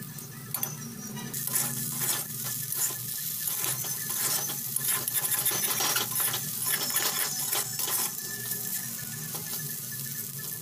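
Potato and okra stir-frying in a pan: a spatula scraping and clicking against the pan over the sizzle of hot oil, the sizzle growing louder about a second in.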